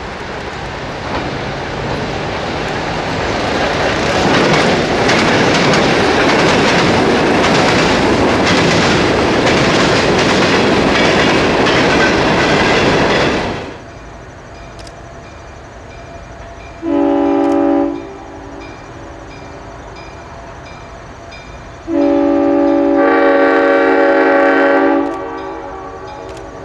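A diesel-hauled freight train with tank cars passing close by, its loud rumble rising over the first few seconds, with wheels clicking over rail joints; it cuts off about halfway through. Then a diesel locomotive sounds its horn, a multi-note chord, in a short blast and, a few seconds later, a longer blast of about three seconds, over the low rumble of the engine.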